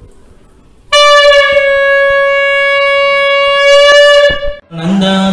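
Toy plastic horn blown in one long, steady, loud note of about three seconds, starting about a second in and cutting off sharply. A man's voice starts just before the end.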